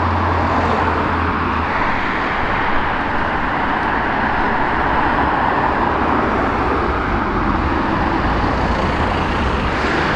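Cars driving past on a road: steady engine and tyre noise. A low engine hum fades out about two seconds in.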